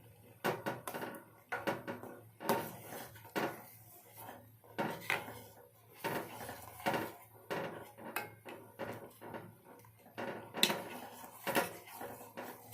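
A spoon stirring in a pot of kadha, clinking and scraping against the pot's sides in irregular strokes as jaggery is mixed in.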